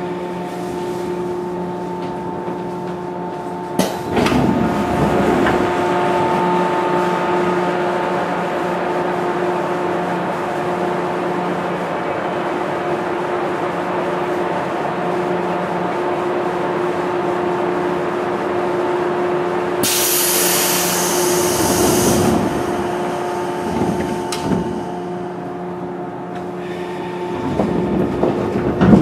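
Inside a JR 415-series electric train pulling into and standing at a station: a steady whine of on-board equipment with several held tones. There is a sharp click about four seconds in, a burst of hiss around twenty seconds in, and a thump at the very end.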